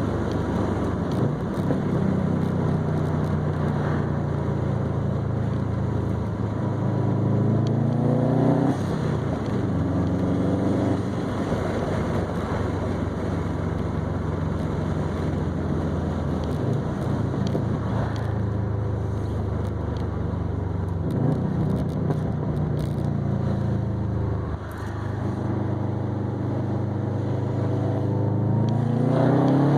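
2020 Subaru WRX STI's turbocharged flat-four engine heard through an ETS non-resonated catback exhaust with a Grimmspeed catted downpipe, cruising with a steady drone. Several times the exhaust note rises in pitch as the car accelerates and then drops back, and it climbs again near the end.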